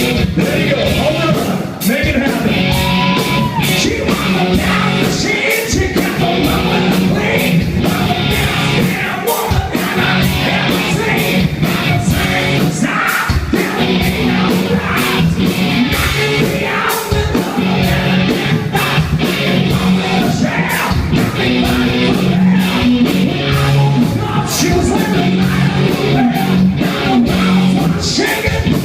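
Rock band playing live: drums beating steadily under loud guitars, with a voice singing and yelling over them.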